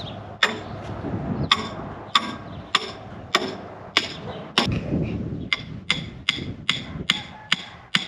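Hammer driving a steel masonry stake into the ground to hold a concrete form board: a steady run of sharp, ringing metal-on-metal blows, about fourteen in all, coming faster in the second half.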